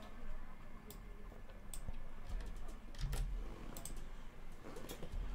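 Faint, irregular computer keyboard keystrokes and clicks, a few scattered taps at a time, as the confirmation name is typed.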